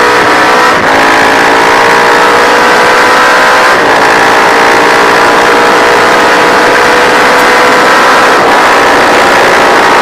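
A Matchless G50's single-cylinder four-stroke racing engine running hard at race speed. Its note climbs steadily as it pulls through the gears, with brief breaks at gear changes about one second and four seconds in, over a steady rush of wind noise.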